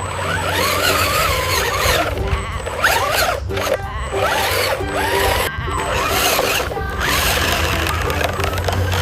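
Background music with a steady beat, overlaid with sound effects that glide up and down in pitch.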